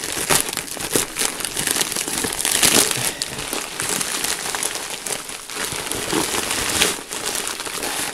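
Crinkling and crackling of a plastic shipping mailer being pulled open and rummaged through by hand, loudest about three seconds in. Near the end a bubble-wrapped bundle is drawn out of it, adding the rustle of bubble wrap.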